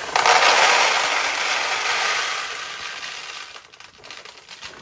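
A tubful of steel pachinko balls poured into the upper hopper of a 1972 Nishijin Model B pachinko machine, a dense rattling clatter that starts suddenly and dies away over about three and a half seconds as the hopper fills.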